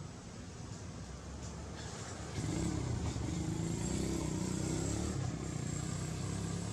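A motor vehicle engine running, growing louder about two and a half seconds in.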